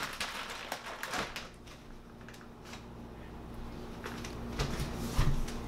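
Scattered light clicks and knocks, with a few low thumps near the end, over a faint steady hum.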